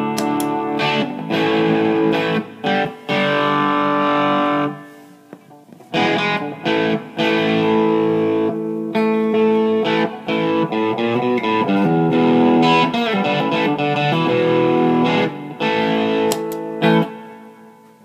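Fender Stratocaster electric guitar played through a distortion pedal into a Fender Bandmaster tube amp. Chords are strummed and left to ring, breaking off briefly about five seconds in and fading near the end.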